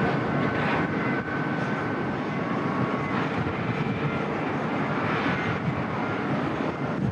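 Boeing 737-800 airliner's jet engines: a steady rushing noise with a faint thin whine, a little louder in the first second and then holding level.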